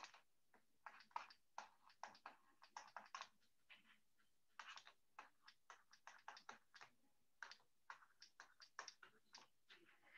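Stylus writing on a tablet: a faint, irregular run of short taps and scratchy strokes as equations are handwritten.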